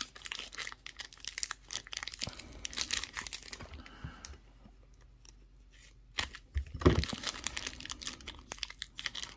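Plastic wrapping on a coin tube crinkling and tearing as it is peeled off by hand, with small handling clicks. It pauses for a moment about halfway through, then picks up again with a louder knock about seven seconds in.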